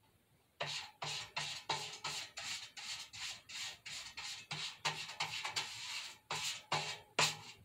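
Paintbrush strokes scraping back and forth across a metal popcorn can as glue is brushed on, about three strokes a second, each with a faint hollow thump from the can. They start suddenly about half a second in.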